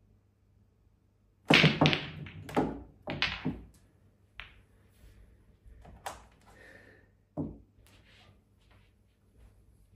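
Break-off shot in English pool, reds and yellows: about a second and a half in, the cue ball strikes the racked pack, and the balls clatter off each other and the cushions in a quick run of sharp knocks for about two seconds. A few single, quieter knocks follow as balls keep hitting cushions and each other.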